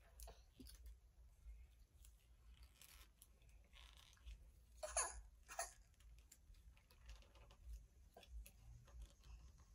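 Near silence: room tone with faint scattered clicks and rustles, and two brief faint sounds about five seconds in.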